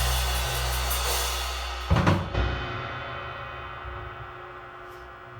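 A band's closing chord held under a cymbal wash, then a final cluster of drum-kit hits about two seconds in, after which the chord rings on and fades away.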